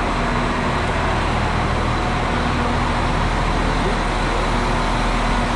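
Irish Rail InterCity diesel multiple-unit train idling at the platform: a steady engine rumble with a constant low hum.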